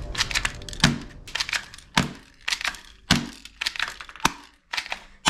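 Toy guns clacking and knocking against one another in a cardboard box as they are rummaged through and picked up: an irregular run of sharp clicks with a few duller thumps.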